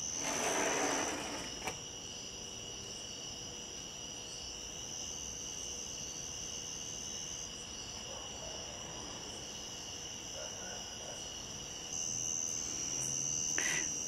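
Night chorus of crickets: a steady, high-pitched trill that carries on without a break. A brief rustle comes near the start, with a single click just after it.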